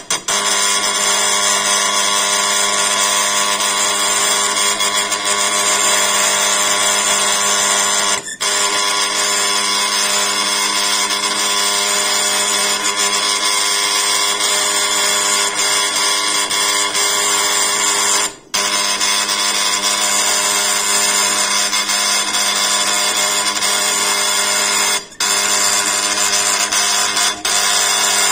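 Magnum 3 impact engraving machine hammering into granite at high speed, its strikes so fast they merge into a steady buzz. It stops briefly three times, about a third of the way in, about two-thirds in and near the end.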